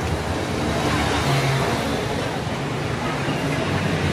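Steady city street noise: road traffic passing, with faint voices of passers-by.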